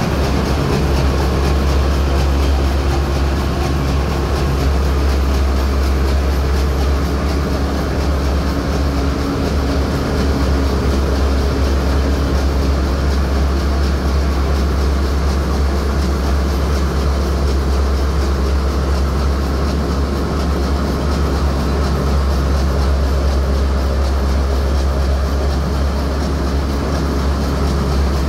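Loud, steady drone of a bulk carrier's engine room with its diesel machinery running: a heavy low rumble under a constant mechanical hum, unchanging.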